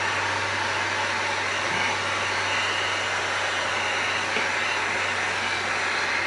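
Heat gun blowing steadily with a constant low hum as it is swept back and forth over EVA foam, heat-sealing the foam surface before gluing.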